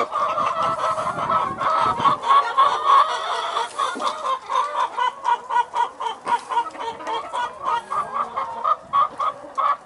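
A flock of young Easter Egger chickens clucking and chattering, a quick run of short calls several a second.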